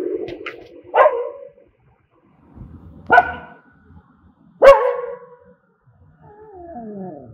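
Dogs barking: three sharp, loud barks about a second and a half apart, then a falling whine near the end. A steady low tone fades out in the first second.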